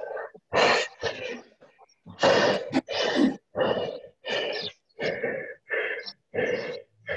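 Heavy breathing of a person exercising hard: short, forceful breaths or gasps, about two a second, heard through a video call.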